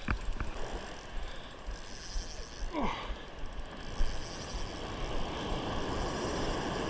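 Spinning reel working under load from a big running fish, its mechanism giving a fast ratcheting whir over a steady wash of noise.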